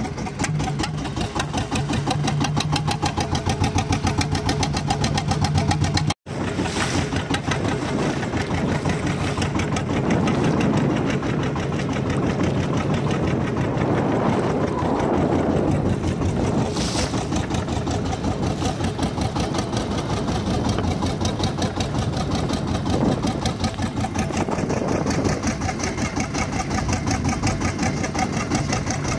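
A small wooden fishing boat's engine running steadily, with a fast, even firing rhythm. The sound drops out for a split second about six seconds in.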